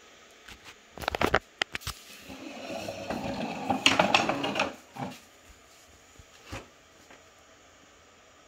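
A sparkly crinkle-ball cat toy clicking on the tile floor, then rattling and crinkling for a couple of seconds as it skitters across the tiles.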